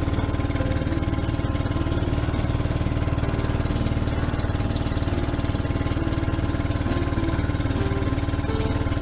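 Motorized outrigger fishing boat's engine running steadily while the boat is under way, a continuous fast-firing chug.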